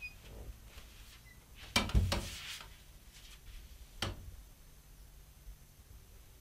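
A few sharp knocks or clicks: two close together about two seconds in, the loudest, and a single one about four seconds in.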